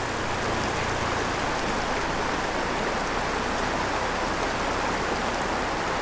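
Shallow, rocky small stream running over stones and through riffles: a steady rush of flowing water.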